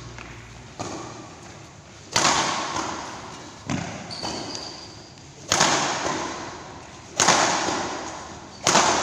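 Badminton rackets striking a shuttlecock in a rally, six sharp hits about one and a half seconds apart, each ringing on in the echo of a large hall.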